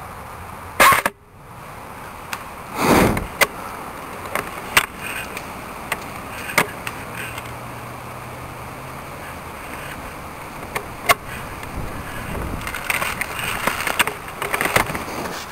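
ICS M4 airsoft electric rifle firing a loud single shot about a second in, followed by scattered quieter snaps and clicks. Dry leaf litter crackles and rustles near the end as the gun is swung round.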